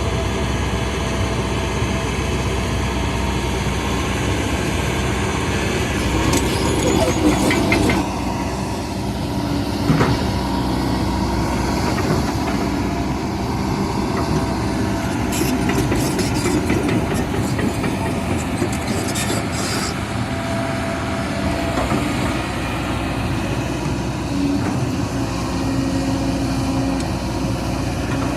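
Heavy construction machine's diesel engine running steadily, with occasional metallic clanks and knocks.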